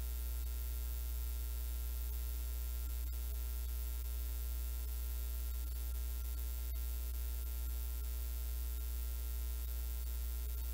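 Steady electrical mains hum with a buzzy stack of overtones, unchanging throughout, with a couple of faint ticks.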